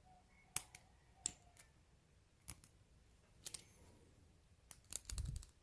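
Scattered small metal clicks of a hand tool prying at a padlock's cap, several single clicks a second or so apart, then a quick cluster with a low handling bump near the end.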